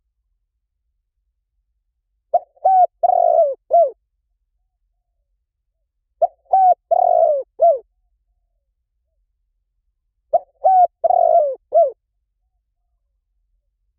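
Spotted dove cooing, played back as a looped lure call: three identical phrases about four seconds apart, each of short coos around one longer coo, with dead silence between.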